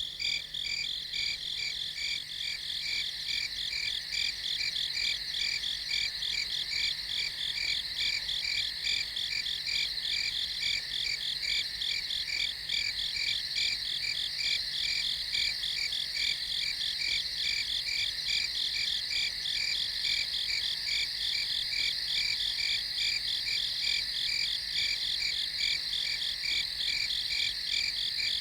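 Crickets chirping at night in a steady chorus: several high-pitched, rapidly pulsing trills that overlap and carry on without a break.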